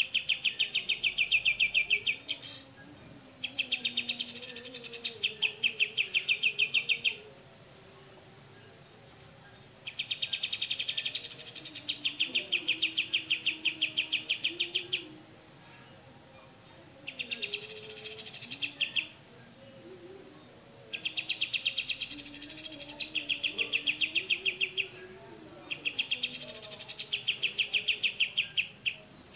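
Cucak jenggot, a crested bulbul, giving its besetan: about six bursts of rapid-fire repeated notes, each two to five seconds long, with short pauses between.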